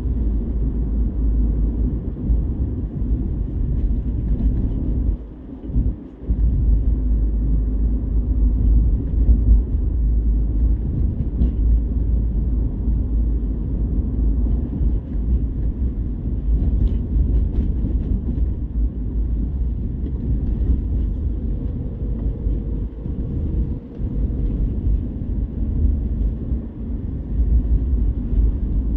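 Steady low rumble of a car's engine and tyres on the road, heard from inside the cabin while driving. The level dips briefly twice about five to six seconds in.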